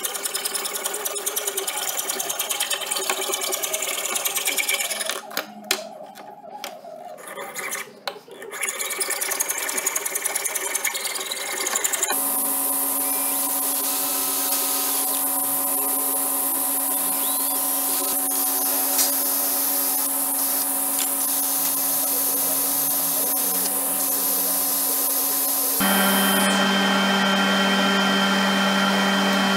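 A hacksaw cutting a brass rod in a vise with rasping back-and-forth strokes, pausing briefly, then a cordless drill running steadily as it bores into a small wooden disc. Near the end a different motor takes over, steady and a little louder.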